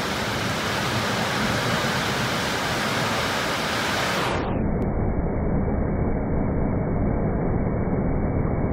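Heavy rain pouring down, a steady rushing hiss. About halfway through, the top of the sound drops away and it turns duller and muffled.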